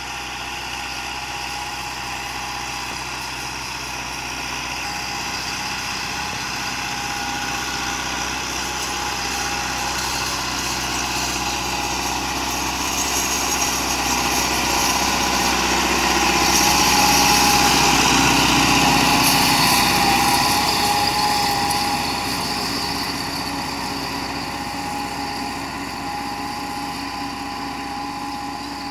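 Massey Ferguson 375 tractor's four-cylinder diesel engine working under load while pulling an 11-tine cultivator, with a steady whine. It grows louder as the tractor passes close about two-thirds of the way in, then fades as it moves away.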